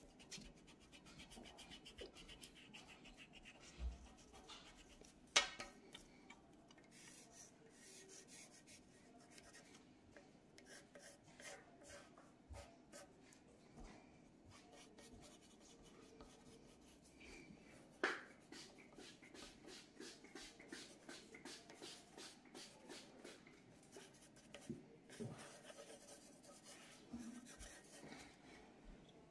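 Graphite pencil scratching on paper in many short, quick strokes while sketching and hatching a drawing, faint, with two sharper clicks, one about five seconds in and one near eighteen seconds.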